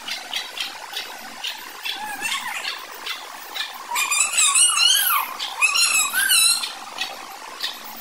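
Chicks cheeping in short high peeps several times a second. From about four seconds in, louder wavering chicken calls come in for a couple of seconds, then the peeping carries on.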